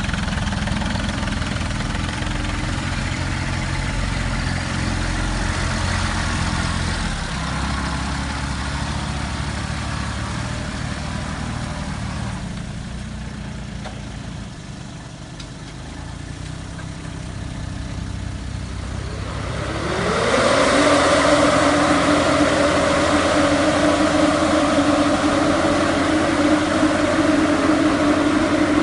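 Diesel farm tractors revving as they churn through deep mud. About two-thirds of the way through, a rising whine settles into a louder steady drone from a tractor-towed air-blast sprayer, its fan and engine running while spraying.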